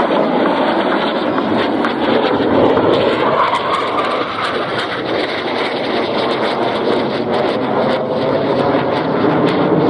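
Loud, steady jet engine noise from a Northrop F-5E Tiger II flying past, the sound of its twin General Electric J85 turbojets.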